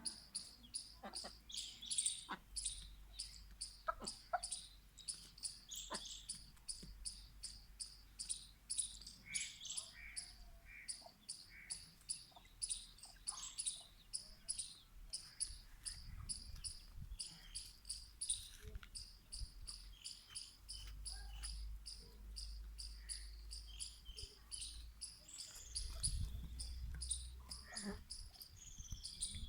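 Insects, probably crickets, chirping steadily at about three chirps a second. Over this come scattered short, high chick peeps and a few faint clicks.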